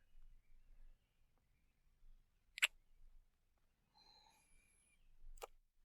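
Two close-miked kisses, short sharp lip smacks about three seconds apart, with a faint breathy sound between them.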